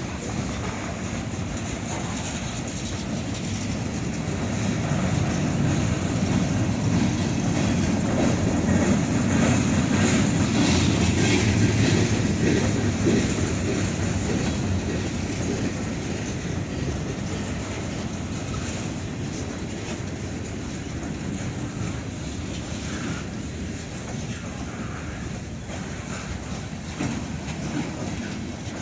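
Freight cars of a long Norfolk Southern train rolling past, steel wheels running over the rails in a steady rumble that swells for several seconds before easing off.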